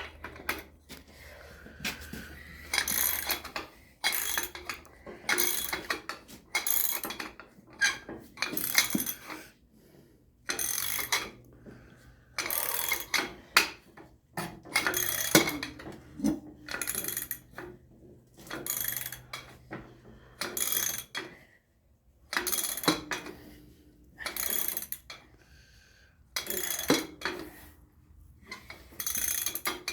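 Hand ratchet wrench tightening the tractor seat's mounting bolts: a run of short ratcheting strokes, roughly one a second, broken by brief pauses.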